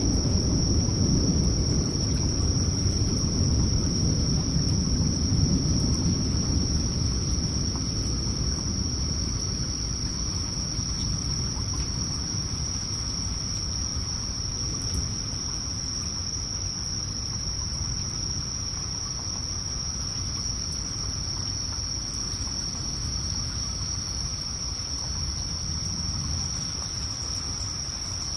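A steady, high, unbroken chorus of night insects in the forest. Under it, a low rumble of thunder fades away over the first ten seconds or so.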